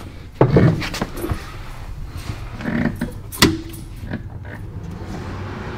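A few scattered clicks and knocks, the loudest about three and a half seconds in, over a steady low background hum.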